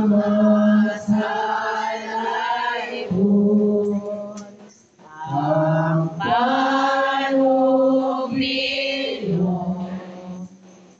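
Voices singing a slow, chant-like Mass hymn in long held phrases, with brief pauses between the phrases.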